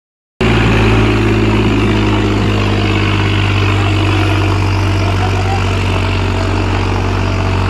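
New Holland tractor's diesel engine running steadily at an even idle.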